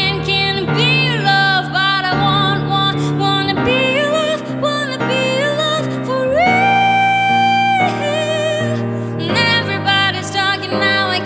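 A woman singing a pop song with instrumental accompaniment, her voice carrying vibrato; a little past halfway she holds one long high note.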